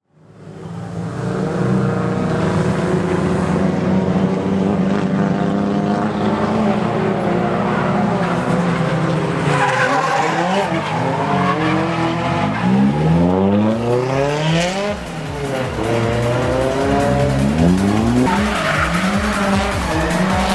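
Drift car engines at high revs with tyres squealing, fading in at the start. The engine note holds steady at first, then rises and falls repeatedly from about halfway as the cars slide.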